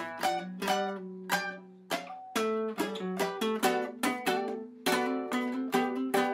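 Music: a plucked-string instrumental passage, single notes and chords picked in a steady pattern of about three notes a second over lower sustained notes.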